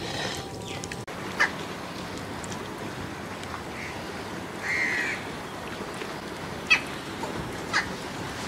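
A short bird call about five seconds in, over a steady background hiss, with a few sharp clicks.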